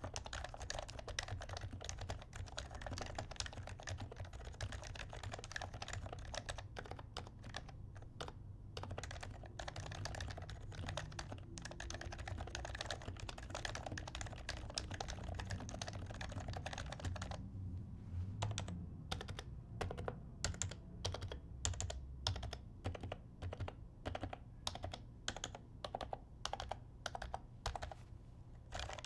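Typing on an HHKB Professional 2, a Topre-style electrocapacitive keyboard fitted with 42 g Deskey pink V2 rubber domes, silencing rings and lubed stabilizers: a dense, continuous run of muted keystrokes that thins to more separate key presses about two thirds of the way in.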